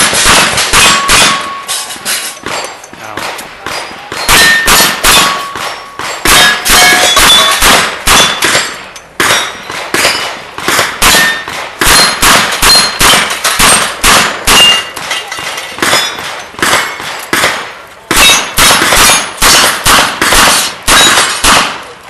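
Open-class competition revolver firing in rapid strings, each shot answered by the clang of a hit steel plate ringing at its own pitch. The strings are broken by short pauses.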